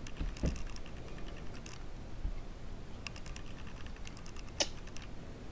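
Light clicks and rustles from a yarn needle and cord being worked through knitted stitches on a knitting loom, in small scattered clusters.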